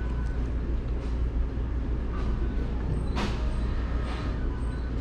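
A steady low room rumble, with faint chewing and a short crunchy bite into a croissant sandwich about three seconds in.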